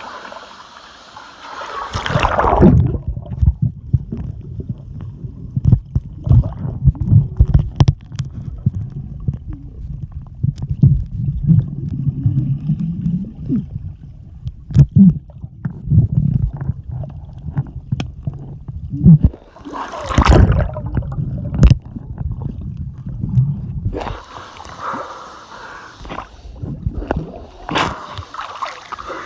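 Stream water gurgling and sloshing, heard deep and muffled with many knocks and bumps through most of the stretch. A brief clearer splash comes about twenty seconds in, and near the end the water turns clearer and brighter.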